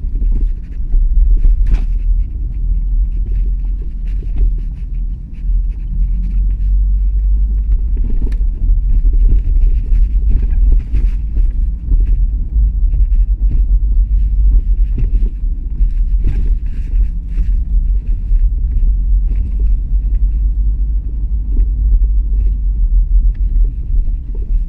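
Opel Astra J driving over small bumps: a steady low rumble of road and engine, with scattered irregular knocks and clunks that come from the rear of the car. The noise is an unidentified fault that the owner is trying to trace.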